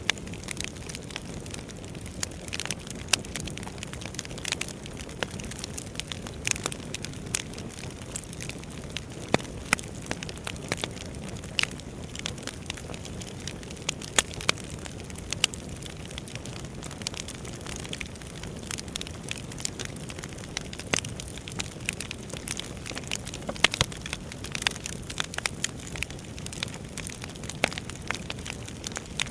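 Wood fire burning: firewood crackling and popping in irregular sharp snaps over a steady low rumble of flame.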